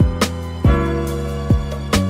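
Background music: a slow beat with regular drum hits and sustained notes.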